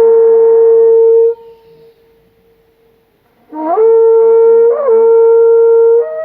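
Horagai conch-shell trumpets blown in long held blasts: one blast ends about a second in, and after a pause a new one scoops up into pitch, briefly flips upward in the middle and holds. Near the end a second, higher-pitched conch joins in answer.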